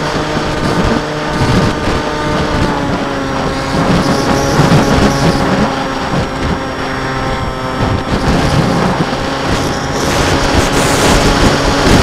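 Motor and propeller of an RC aircraft running steadily, heard from its onboard camera, with wind buffeting the microphone. The motor's pitch dips slightly a couple of seconds in.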